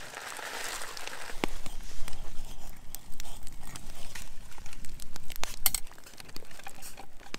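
Campfire crackling and popping close by, with the rustle of a food packet being emptied into a metal mug and a spoon stirring in the mug.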